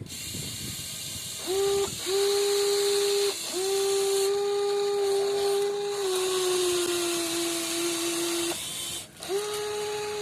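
Electric motors of a WLtoys 16800 metal RC excavator whining as its functions are worked in short runs, stopping and starting several times. In the longest run the pitch sags gradually, as if under load, before it cuts off.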